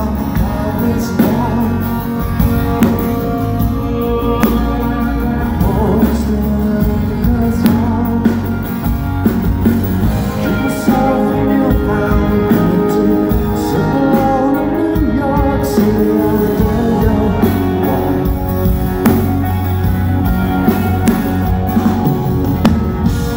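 Rock band playing live, with a lead singer over electric guitars and a steady drum beat.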